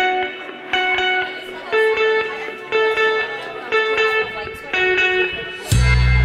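Background music of plucked, guitar-like notes, about one a second. Near the end a louder section cuts in with deep, sustained bass tones.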